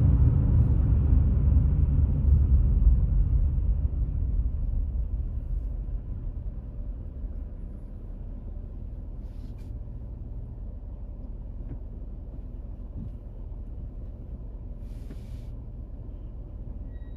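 Low road and engine rumble heard from inside a moving car, fading over the first several seconds as the car slows to a stop in traffic, then a lower steady hum while it sits waiting.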